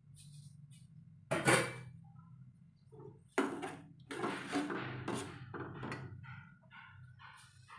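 Long metal slotted spoon knocking and scraping against a wok as the pan is stirred, a series of clattering knocks, the loudest about a second in, then several more in the middle, over a low steady hum.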